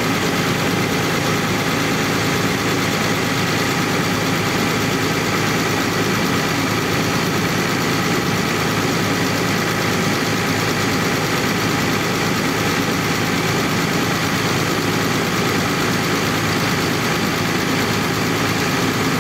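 Heavy-equipment diesel engine idling steadily, heard up close in the open engine bay.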